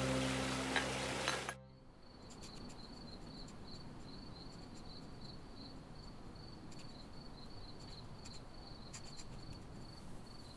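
Sustained music with held notes cuts off abruptly about a second and a half in. Crickets then chirp in a steady, pulsing high trill over faint background hiss.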